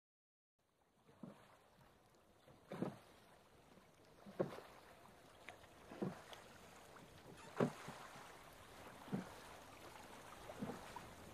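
Wooden oars of a small rowing boat being pulled in a steady rhythm. Each stroke gives a short knock and splash, about one every one and a half seconds, starting after a brief silence.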